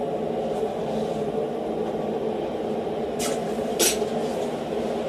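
Steady mechanical hum of a running motor or blower, with two short hiss-like noises about three and a half seconds in.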